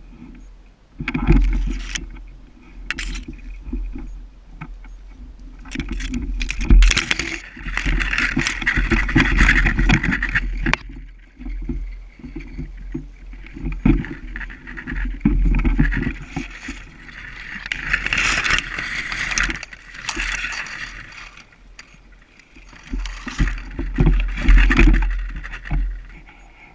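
Irregular rustling and scraping from movement through brush, over a low rumble of wind and handling noise on a body-worn action camera. A few sharp clicks or snaps cut through.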